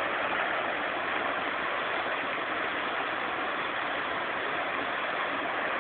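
Fountain jets splashing into their basin: a steady rush of falling water.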